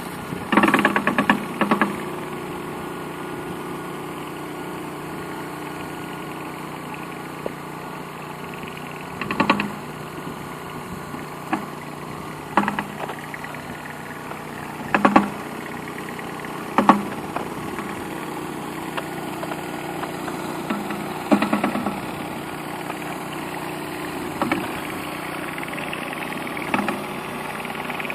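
Pressure washer engine running steadily, with several short louder surges scattered through at uneven intervals.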